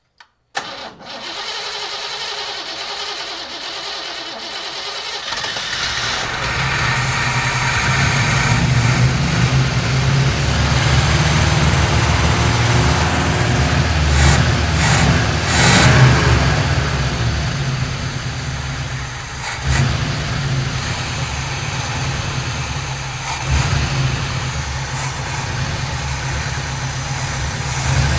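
The long-dormant engine of a 1957 GMC 100 pickup, primed with fuel poured into the carburettor, turns over and catches about five seconds in. It then runs with its throttle worked by hand at the carburettor, getting louder to a peak around sixteen seconds. It sounds worn, with blow-by, but without knocking.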